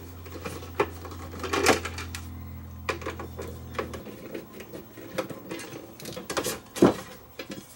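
Scattered metallic clicks and knocks as screws are backed out with a hand screwdriver and the metal rails of a stereo component's case are worked loose, with one louder knock near the end. A low steady hum runs under the first half and then stops.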